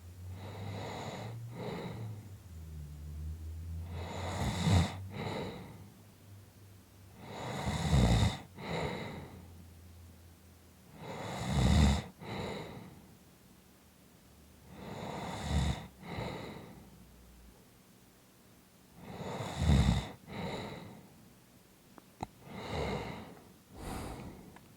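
A person snoring in slow, regular breaths, a loud snore about every four seconds that swells to a peak and then drops away, with quiet pauses between.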